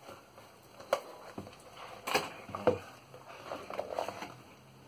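Knife cutting the seal of a cardboard box, then the box being handled by hand: a few sharp clicks and taps with rustling scrapes in between.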